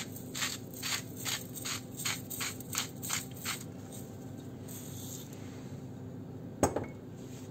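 Salt mill being twisted over a pot of flour: about ten short grinding strokes, three or four a second, over some three seconds. A single sharp knock follows near the end.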